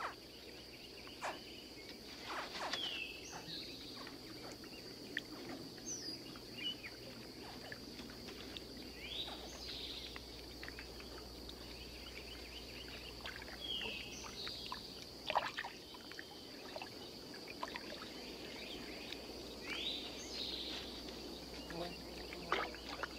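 Swamp ambience: a steady high-pitched insect drone, with scattered short bird chirps and small clicks and rustles.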